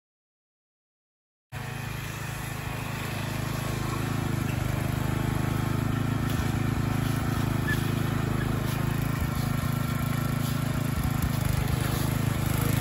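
Ariens riding mower's engine running steadily as the mower drives along. It cuts in abruptly after a second and a half of dead silence and grows gradually louder over the next few seconds as it comes nearer.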